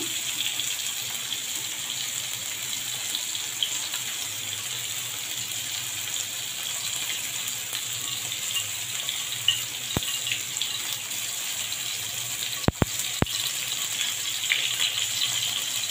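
Hot oil sizzling in a kadai with fenugreek seeds frying in it: a steady hiss with small crackles. A single sharp click comes about ten seconds in, and three quick clicks follow a few seconds later.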